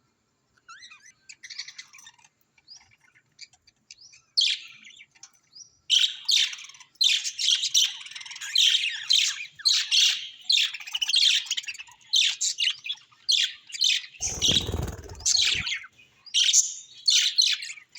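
Budgerigars chattering in quick high chirps and warbles, sparse and faint at first, then busy and continuous from about six seconds in. A brief low noise about three-quarters of the way through.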